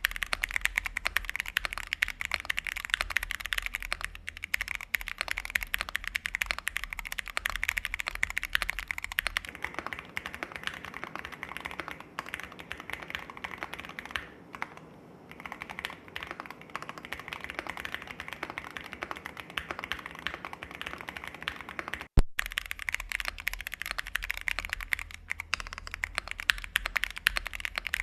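Continuous fast typing on an MM Studio Class60 custom 60% mechanical keyboard fitted with TU switches: a dense run of key clacks. The sound's character shifts about a third of the way in. A momentary dropout with a single sharp click comes about three quarters of the way through.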